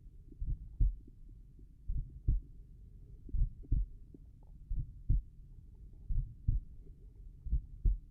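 Slow human heartbeat at rest, the uploader's tricuspid valve heart sounds: six lub-dub pairs of low thumps, one pair about every one and a half seconds (roughly 43 beats a minute).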